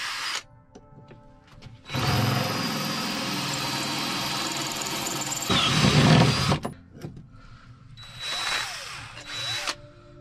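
Cordless drill boring a hole through a flat steel plate: one steady run of about five seconds that turns louder and lower near its end, then two short spin-ups that rise and fall in pitch.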